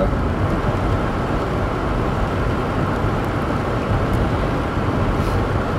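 Steady road noise inside a moving car on a rain-soaked road: an even rumble and hiss of tyres on wet pavement with the engine underneath.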